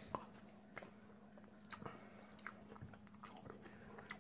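A person chewing a macaron close to the microphone: faint soft crunches and wet mouth clicks scattered irregularly, over a low steady hum.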